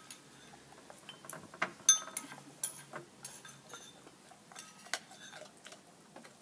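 Chocolate Labrador eating from a ceramic bowl, making irregular clicks and clinks of teeth and tongue against the bowl.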